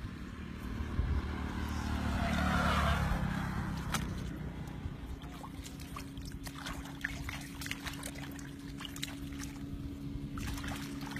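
A small engine running steadily, with water pouring and splashing over it, loudest about two to three seconds in, and scattered small knocks and clicks.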